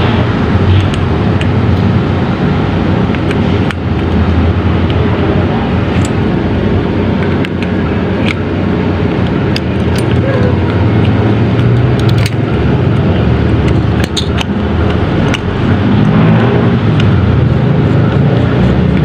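A steady engine hum from a nearby running motor vehicle, with a few light clicks.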